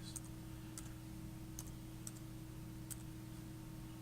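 A few scattered computer keyboard keystrokes, four light separate clicks, as a name is typed in, over a steady low hum.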